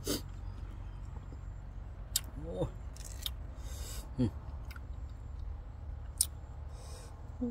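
A green young tamarind pod being snapped and peeled by hand: several sharp, crisp snaps a second or more apart, with a brief rustle once or twice.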